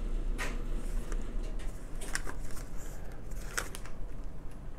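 Handling noise from a small cardboard product box being turned and shifted in the hands: a few short rustles and scrapes against the fingers.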